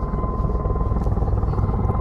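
Helicopter running, a rapid low chopping from the rotor with a steady high whine over it.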